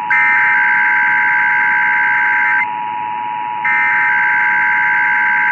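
Emergency Alert System two-tone attention signal sounding steadily, overlapped by two long bursts of SAME header data, a rapid high warbling digital screech, about a second apart. This marks the start of the next alert, a required weekly test. The two-tone signal cuts off just before the end.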